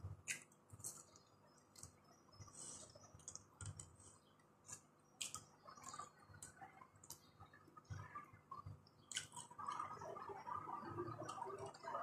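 Quiet eating sounds of a person chewing chicken eaten by hand: scattered lip smacks and wet mouth clicks, busier over the last couple of seconds.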